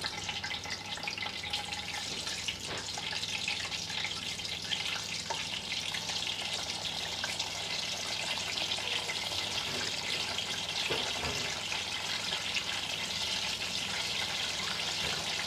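Aubergine slices sizzling as they fry in hot oil in a stainless steel pan, a steady hiss that grows a little stronger as more slices are laid in.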